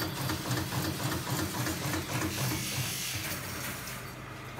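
Pillar drill motor running with a steady hum while holes are drilled into a steel basket frame, with a quick rhythmic ticking over the first two seconds or so.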